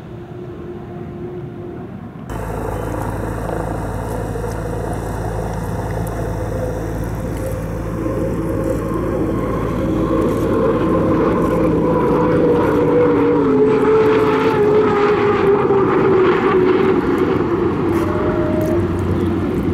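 Unlimited hydroplane's Lycoming turbine engine running at speed on a pass. It steps up sharply about two seconds in and grows louder, its whine sliding down in pitch as the boat goes by.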